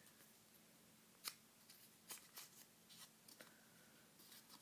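Faint crackles and rustles of a sheet of white paper being folded and creased by hand, with the sharpest crackle about a second in.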